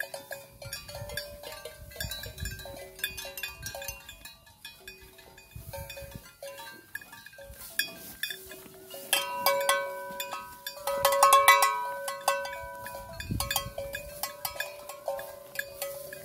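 Cowbells clanking irregularly on the necks of grazing cattle, a few fixed ringing notes with many knocks, loudest about nine to twelve seconds in.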